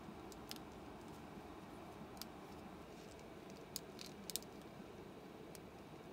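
Plastic action figure being handled in gloved hands: a handful of light, sharp plastic clicks from its parts and joints, the sharpest a close pair a little past the middle, over a faint steady hiss.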